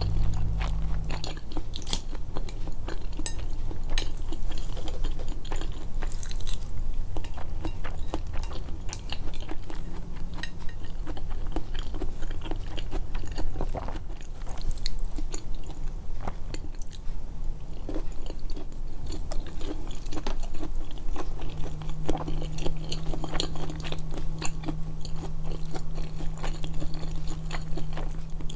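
Close-miked chewing and biting of food, with wet mouth clicks and irregular crunches all through. A faint steady low hum sits underneath near the start and again from about two-thirds of the way in.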